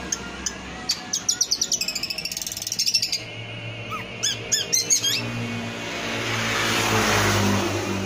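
Caged long-tailed shrike (cendet) singing: a fast rattling run of high chirps about a second in, then a few short sweeping notes around the middle. A broad rushing hiss swells and fades near the end.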